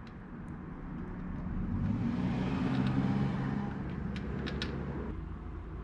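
A passing road vehicle: engine and road noise swell up to a peak about three seconds in, then fade away. A few short high ticks come near the peak's tail, around four seconds in.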